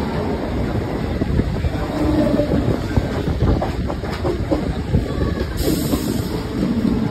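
Mumbai suburban electric local trains running side by side on parallel tracks: a steady loud rumble of wheels on rails with irregular clatter over the rail joints, and a brief hiss about five and a half seconds in.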